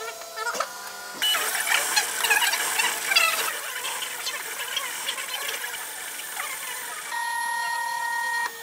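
MakerBot 3D printer running a print job: its stepper motors whine and buzz in shifting pitches as the print head and build plate move. A steady whine holds for about a second and a half near the end.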